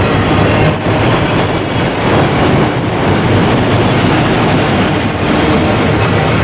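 A train rolling past close by, steel wheels on the rails running steadily, with thin high-pitched wheel squeal over the rumble.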